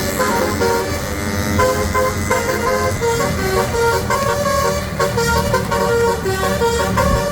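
Bus's telolet basuri musical air horn playing a quick melody of short, stepped notes, over the steady low hum of the running bus.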